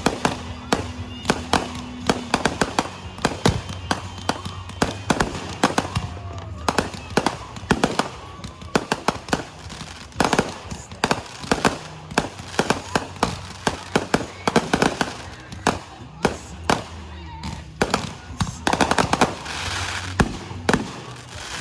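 Fireworks going off: many sharp pops and bangs in quick, irregular succession, with a denser crackling burst near the end.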